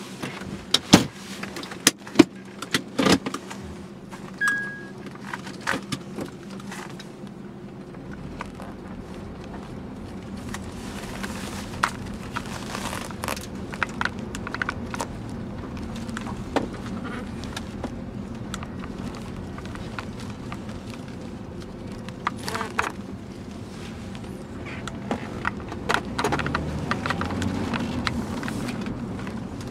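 Inside the cabin of a 2007 Honda Accord Type S: a few sharp clicks and knocks and one short beep in the first seconds. Then the car's 2.4-litre inline-four runs steadily with tyre noise as it pulls away, growing louder near the end as it speeds up.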